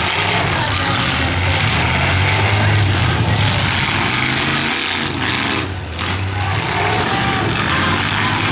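Demolition derby cars' V8 engines running loudly under throttle, with a brief drop in the engine noise a little before six seconds in.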